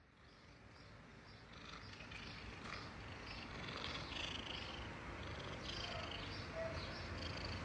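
Domestic cat purring steadily while being scratched on the chin and head. The purr fades in about a second in and builds over the next couple of seconds.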